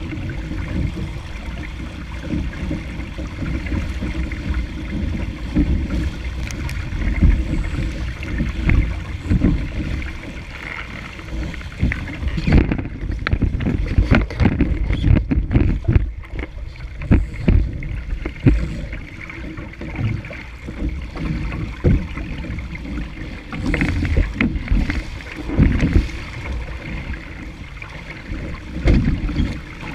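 Wind buffeting a deck-mounted camera's microphone over water rushing and slapping against a small sailing dinghy's hull as it sails through chop, with irregular knocks. The rush thins for a few seconds around the middle as the boat tacks.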